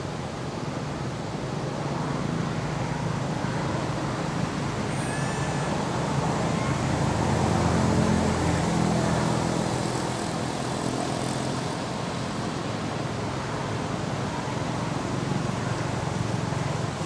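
A motor vehicle's engine rumbling past, growing louder to a peak about halfway through and then fading, over steady traffic noise. A few short high chirps are heard faintly.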